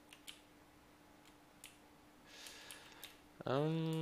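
Scattered soft computer keyboard key presses, a few single taps and then a quick cluster, over a faint steady hum. Near the end a man starts a drawn-out hesitant 'ehh', held at one pitch.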